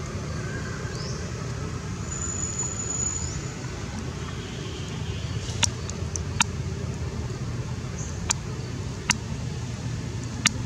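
Steady low outdoor rumble, like distant road traffic or wind, with several sharp clicks in the second half.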